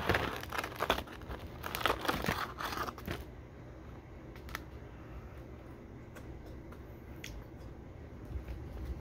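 A paper fry carton crinkling and rustling as fries are shaken out of it onto a plate, the carton then scrunched in the hand. After about three seconds the crinkling stops, leaving only a few faint taps and clicks.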